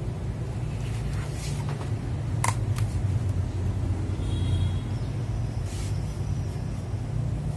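Steady low background rumble, with a few sharp clicks on top, the sharpest about two and a half seconds in.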